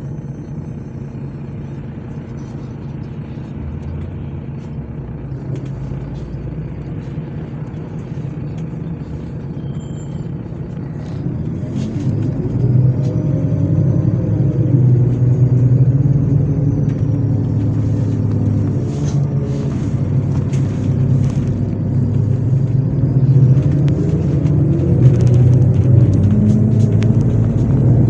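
MAZ 103.486 city bus heard from inside the cabin: the diesel engine runs steadily at low speed, then about eleven seconds in it grows louder as the bus accelerates, the engine and drivetrain tone rising in pitch twice.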